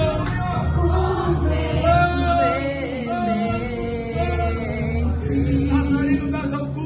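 A Brazilian gospel worship song playing: sung vocals carrying the melody over a band with a pulsing bass.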